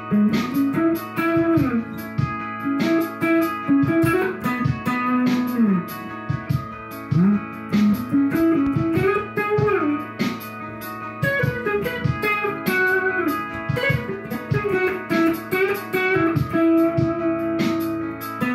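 Electric guitar playing a melodic lead line with bends and slides over sustained, layered backing loops playing back from a looper.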